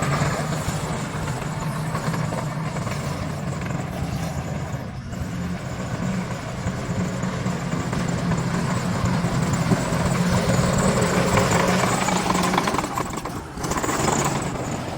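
Bulldozer's diesel engine running steadily with a heavy low hum and mechanical clatter, briefly dipping about five seconds in and again near the end.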